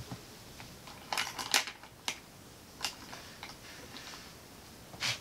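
Small plastic items being handled: scattered light clicks and clatters of makeup products and plastic organizer trays, a short cluster about a second in and single clicks after that.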